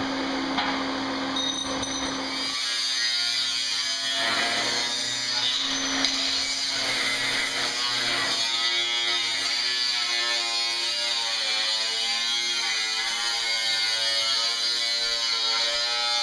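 Pneumatic cut-off wheel cutting through the sheet-metal roof of a Chevy van: a steady hiss with a whine whose pitch wavers as the disc bites into the metal.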